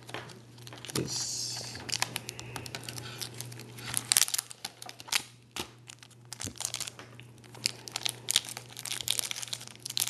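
Clear plastic card sleeve and rigid plastic toploader crinkling and clicking as they are handled, in irregular crackles.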